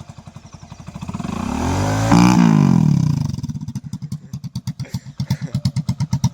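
Motorcycle engine running, climbing in pitch and loudness to a peak about two seconds in, then dropping away, with its firing pulses slowing toward the end.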